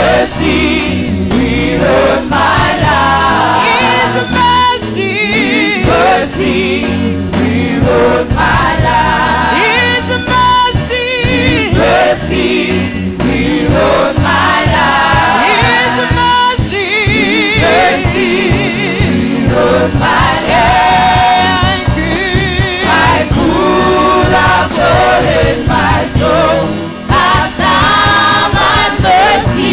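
Gospel worship song sung by a choir with band accompaniment: many voices singing over a steady drum beat and bass.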